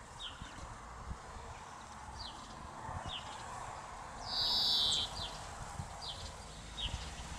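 Birds calling outdoors: short, high, downward-sliding chirps about once a second, with a louder rasping call lasting under a second about halfway through, over a low steady rumble.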